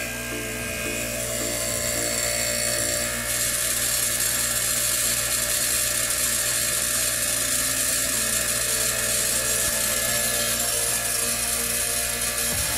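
Homemade air compressor made from a window air-conditioner's compressor, running steadily with a low hum and a high hiss as it pumps its 1-gallon tank back up from about 60 PSI. The hiss grows a little louder about three seconds in.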